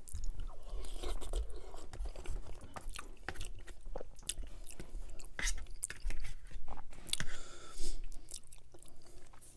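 Close-miked chewing of a mouthful of lasagna: wet mouth smacks and clicks. Now and then a metal fork scrapes and taps in the foil tray, with a brief scrape near the end.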